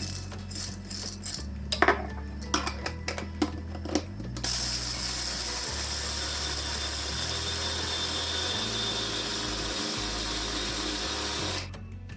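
Electric chopper grinding walnuts and pistachios: the nut pieces rattle and click for the first few seconds, then about four seconds in the motor runs steadily for about seven seconds and stops near the end.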